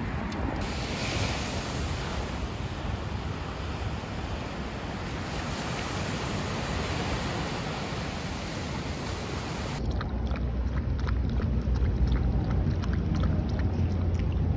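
Surf washing onto a sandy beach, a steady hiss of breaking waves. About ten seconds in it gives way to a low rumble with quick small clicks as a dog laps water from a portable water bottle.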